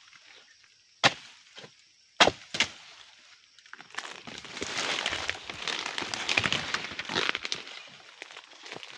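A few sharp chopping strikes against an oil palm, then several seconds of dense crackling and rustling, like palm fronds breaking and scraping down through the leaves.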